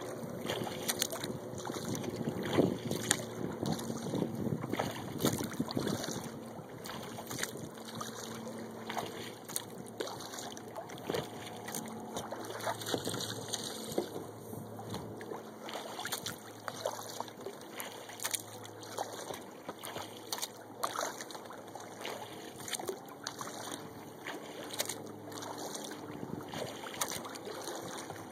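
Water lapping and dripping around a kayak, with small irregular splashes and knocks against the hull. A faint steady low hum runs underneath.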